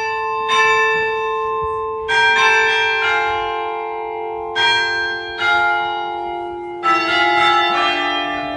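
Church tower bells ringing close up: a slow series of struck notes, each ringing on under the next, the pitch stepping down overall like a tune played on the bells.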